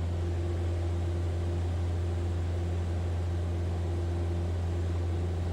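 Steady drone of a Piper Cherokee's piston engine and propeller in flight, heard from inside the cabin: an even low hum with a constant hiss over it.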